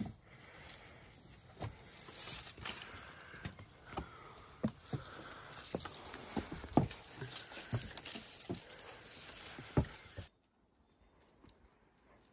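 Hikers' footsteps scuffing and knocking irregularly on a steep mountain trail, over a faint rustling hiss; it cuts off suddenly about ten seconds in, leaving near silence.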